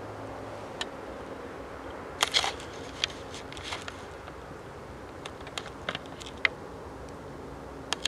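Scattered sharp clicks and crackles over a faint steady hum. A quick cluster comes about two seconds in, and single clicks follow every second or so.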